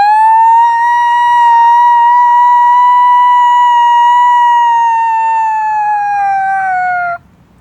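A person imitating a siren with his mouth, both hands held to it: one long tone that swoops up at the start, holds steady for about seven seconds, then sags in pitch and cuts off.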